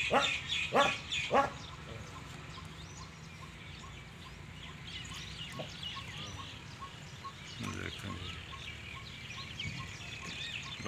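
Three loud, short squawks in the first second and a half, then many small birds chirping over a steady low hum, with a lower animal call near 8 seconds.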